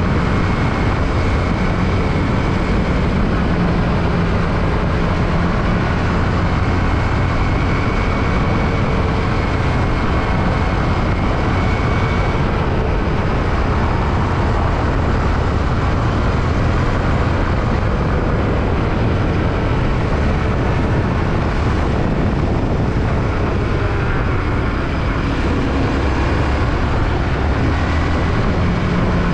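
Yamaha WR155R trail motorcycle's single-cylinder engine running steadily while riding, mixed with dense wind and road noise on the microphone.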